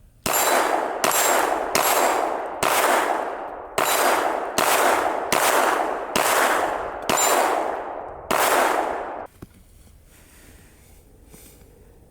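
Ten 9mm pistol shots from a Glock 43X fired at a steady pace of about one a second, each followed by a long decaying ring; the firing stops about three quarters of the way in.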